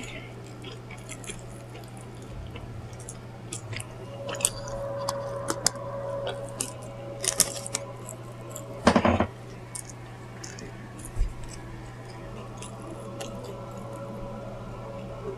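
Close-up mouth sounds of someone eating fried chicken: scattered small wet smacks and crunches of chewing, with one brief louder sound about nine seconds in. A steady low hum runs underneath.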